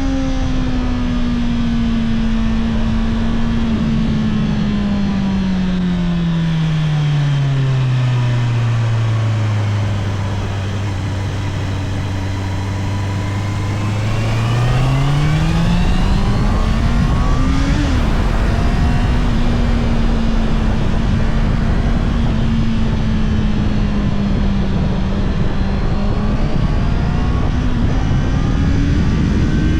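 Honda CBR650R inline-four engine on its stock exhaust, heard from the rider's seat with wind noise: the engine note falls steadily as the bike slows, holds low for a few seconds, then climbs as it pulls away and settles into an even cruise, rising again near the end.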